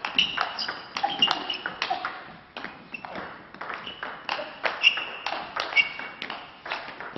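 Table tennis rally: the celluloid ball clicking off bats and table several times a second, some hits with a short ringing ping.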